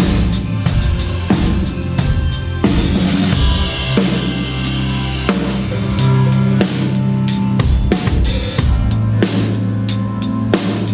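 Drum kit played through a slow pop song, with kick, snare and cymbal hits up front over bass and the song's other instruments.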